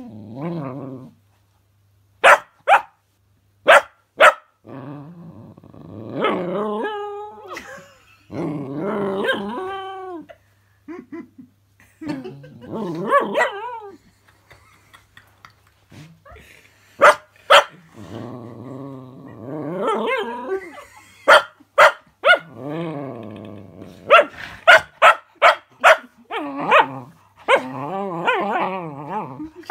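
Cocker spaniel puppy barking and howling: short sharp barks in small clusters alternate with long wavering howls that rise and fall in pitch.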